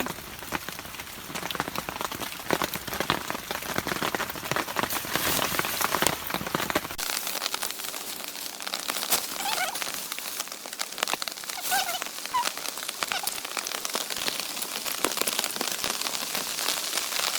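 Steady rain falling, with many single drops striking close by.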